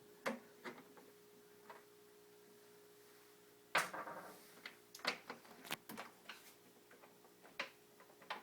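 Plastic trim pieces on a refrigerator door being handled and pressed into place: scattered small clicks and taps, with one louder knock about four seconds in and a run of clicks soon after, over a faint steady hum.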